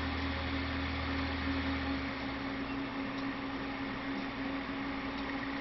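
Steady machine whir and hum from an ASUS ROG G750 gaming laptop booting from its Windows 8 install disc, with a deeper hum that drops away about two seconds in.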